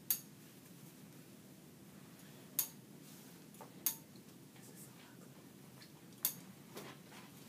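Sharp clicks and taps from a hose-fed gravity steam iron being worked over a press cloth and set on its rest: four distinct clicks at irregular gaps, with a few fainter taps between.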